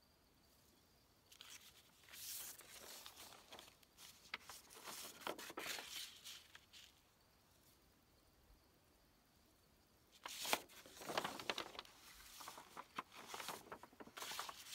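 Sheets of painted paper being handled and swapped, rustling and crinkling in two spells: the first from about a second in, the second opening with a sharp crackle about ten seconds in.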